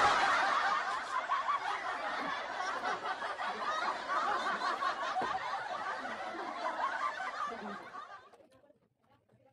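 Laughter from many voices at once, like a laugh-track sound effect, fading out about eight seconds in.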